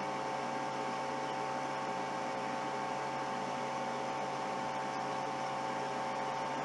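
SIKA TP Premium temperature calibrator running as it heats up, giving a steady electrical hum with a few constant tones over an even hiss.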